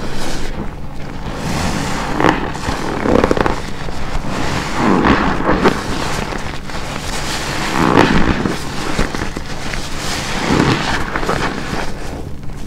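A black car wash sponge soaked with shampoo being squeezed, giving repeated wet squelches about every second or two.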